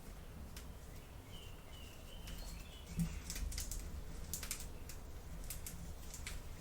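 Light clicks and taps of small plastic toy pieces being handled, a dozen or so irregular clicks, with a faint high chirp about a second and a half in.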